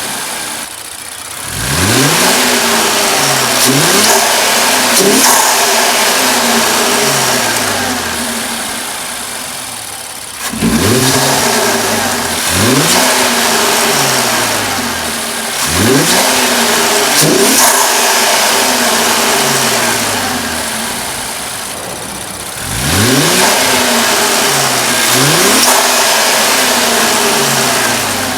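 Infiniti Q50's engine, fitted with AMS cold air intakes, being revved: three rounds of quick rev climbs, near the start, about ten seconds in and about twenty-two seconds in, each settling back down slowly between rounds.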